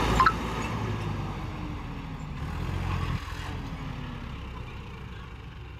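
John Deere 5405 4WD tractor's diesel engine running as it drives over ploughed ground. Its pitch eases down and the sound fades as it pulls away.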